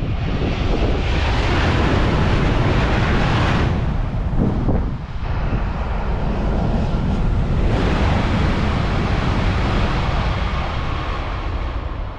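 Wind rumbling on the microphone mixed with the rushing noise of a high-speed train on the line, with a brief lull about four to five seconds in.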